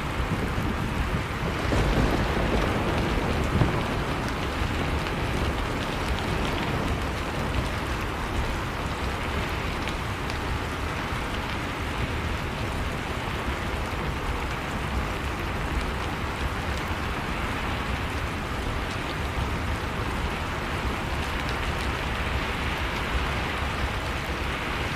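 Heavy rain falling steadily, with a low rumble that swells about two seconds in, typical of distant thunder.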